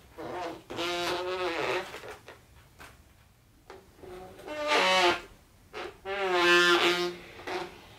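Background music: a lead melody instrument plays short phrases with sliding, bending notes, with quieter gaps between the phrases.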